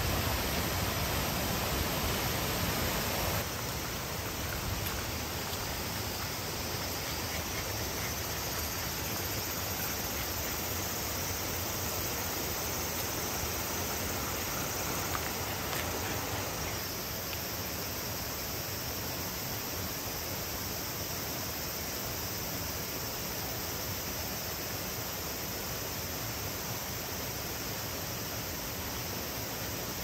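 Steady rush of water from a rocky mountain stream tumbling over small cascades, dropping a little in level about three seconds in.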